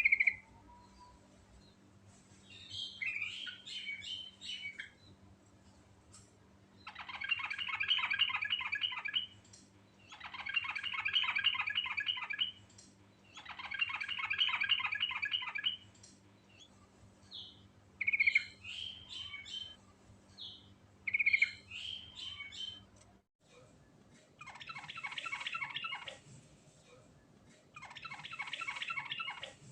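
Yellow-vented bulbul (trucukan) singing in long rolling phrases of rapid chattering notes, each about two seconds long and repeated with short pauses, with shorter calls in between.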